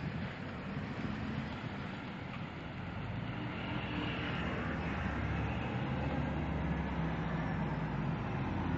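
Street traffic with a vehicle engine running as a steady rumble, growing louder toward the end.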